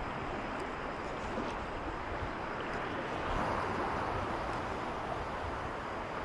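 Sea waves washing over a shallow coral reef flat, mixed with wind on the microphone: a steady rush that swells a little about halfway through.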